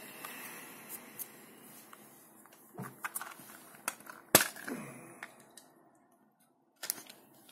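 Handling noise from small clear plastic bit boxes being put down and picked up: a few scattered clicks and light knocks, the sharpest about four seconds in, with another near the end.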